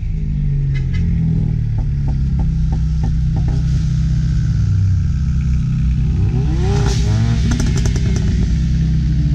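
Ford EcoBoost Mustang with an aftermarket cat-back exhaust, its turbocharged four-cylinder running with a low exhaust drone that settles down just after the start, then revs up sharply about two-thirds of the way through.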